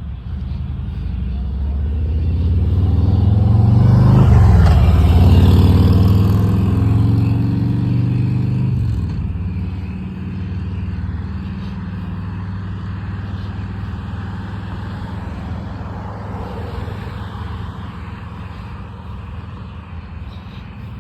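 A car drives past close by. Its sound builds over the first few seconds, drops in pitch as it goes by about four to five seconds in, and fades away by about nine seconds in. A steady low rumble remains after it.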